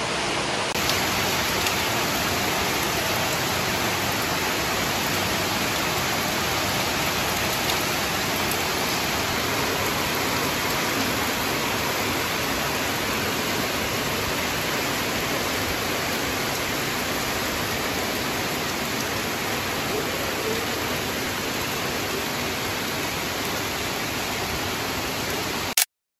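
Heavy rain falling steadily on trees and concrete rooftops, a constant even hiss that cuts off suddenly near the end.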